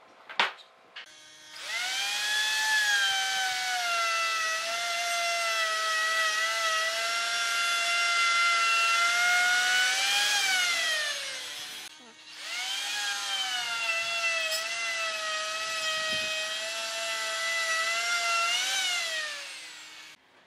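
Electric plunge router with an edge guide running a cut along a board: the motor spins up to a steady high whine and runs about nine seconds, then winds down. After a short pause it runs again for about eight seconds. Each run dips in pitch just after starting and rises briefly before it winds down. A single sharp knock comes just before the first start.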